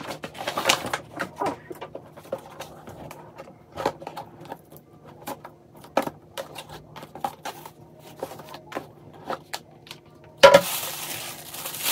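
Paper and cardboard packaging handled: an orange paper shopping bag and a gift box with a ribbon rustling, with small taps and clicks. About ten and a half seconds in comes a louder rustle lasting over a second.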